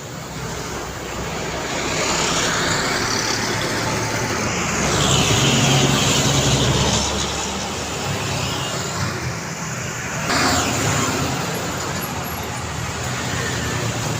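Road traffic passing on a busy city road: cars and heavy trucks driving by, with engine drone and tyre noise. One vehicle grows louder to a peak about halfway through, and another loud pass begins suddenly about ten seconds in.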